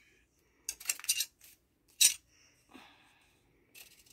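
Large metal fabric scissors picked up and opened, giving a few short metallic clicks and one sharper click about two seconds in; near the end the blades start snipping through folded paper.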